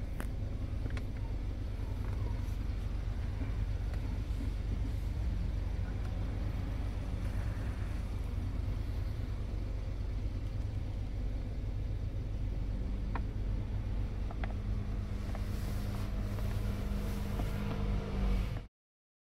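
Hyundai Santa Fe's engine idling, a steady low rumble with a hum, heard from inside the cabin, with a few faint clicks; it cuts off abruptly near the end.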